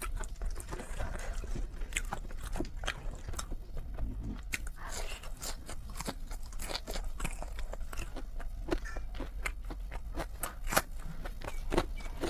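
A person chewing spicy noodles close to the microphone: a quick, irregular run of mouth clicks and smacks with a short soft slurp about five seconds in.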